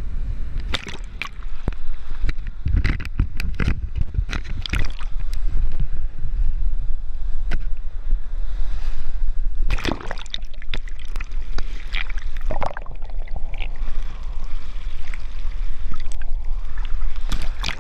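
Shallow beach wash sloshing and gurgling over sand, with many short splashy crackles over a steady low rumble.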